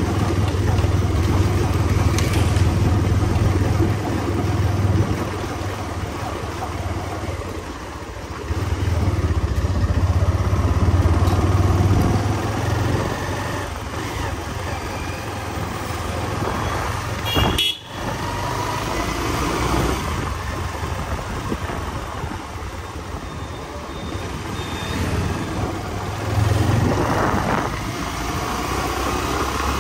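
Benelli 302S motorcycle's parallel-twin engine running while riding through town traffic, its note rising and easing with the throttle, with a brief break in the sound a little past halfway.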